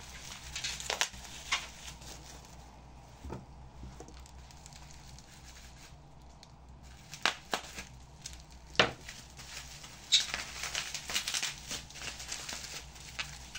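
Objects being handled: scattered sharp knocks and clicks, with a run of rustling and crinkling near the end.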